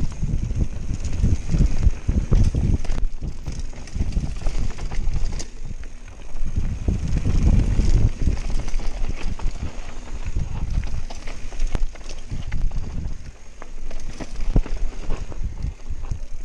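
Wind buffeting a GoPro HERO Session's microphone during a fast descent on a Canyon Spectral mountain bike, over the rumble of its tyres on a dirt trail. Scattered clicks and knocks come from the bike rattling over bumps.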